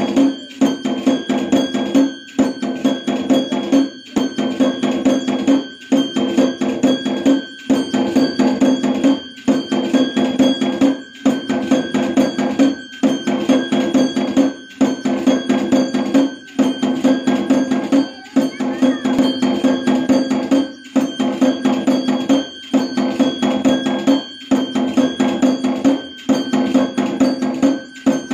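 Temple bells ringing over fast, steady percussion for the puja, in a dense repeating pattern with a short break roughly every 1.8 seconds.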